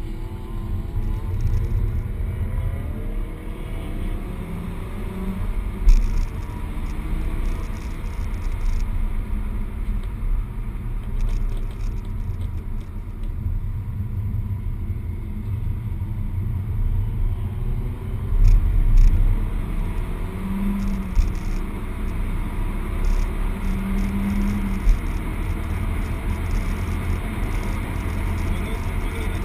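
Peugeot 208 GTi's turbocharged 1.6-litre four-cylinder engine heard from inside the cabin at track speed, over a steady low rumble of tyre and road noise. The engine note climbs in pitch through the gears in the first few seconds. A few louder thumps come about six seconds in and again around nineteen seconds.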